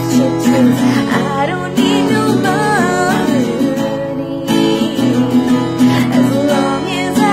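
A woman singing a pop melody while strumming chords on an acoustic guitar fitted with a capo.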